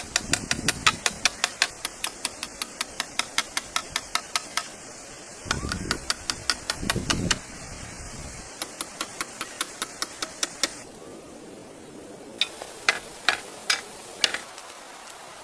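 Rapid hammering, sharp evenly spaced blows at about four to five a second, in several runs with short pauses between them. The last run, near the end, is slower and more irregular.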